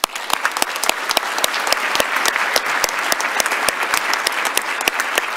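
An audience applauding, starting suddenly as a dense patter of many hands clapping.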